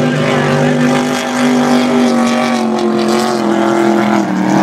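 Offshore racing powerboat running flat out past the shore, its engines giving a loud, steady drone whose pitch sags slightly past the middle.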